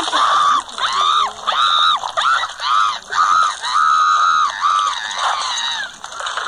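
A high-pitched cartoon voice screaming in a string of short, arching cries, about one every half second.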